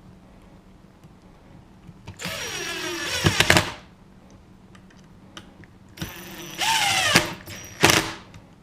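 Cordless drill/driver driving screws in two runs of about a second and a half each, the motor whine dropping in pitch as each screw bites and seats, with a brief last burst near the end.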